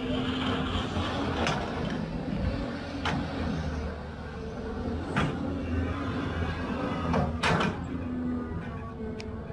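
Caterpillar 320 hydraulic excavator's diesel engine running steadily under load, with about six sharp metallic clanks from the bucket and its linkage as it dumps and swings. In the first couple of seconds a hissing rush of soil pours from the bucket into the dump truck's bed.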